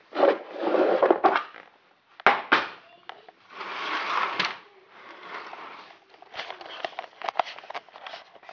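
Handling noise of plastic Lego pieces being moved and set down: rustling, a couple of sharp knocks about two seconds in, and a run of light clicks near the end.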